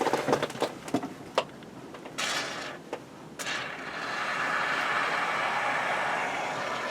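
Can of spray foam hissing as foam is sprayed on, first in a short burst about two seconds in and then steadily for the last three seconds, after a few knocks and clicks of handling.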